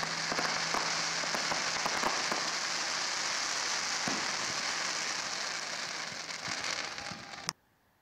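Fireworks crackling: a dense, steady crackle of many small pops from bursting aerial shells, cutting off abruptly near the end.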